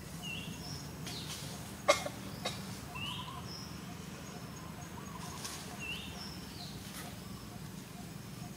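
A bird calling with a short high chirp repeated about every three seconds, over a steady low hum. A sharp click about two seconds in, with fainter ticks later.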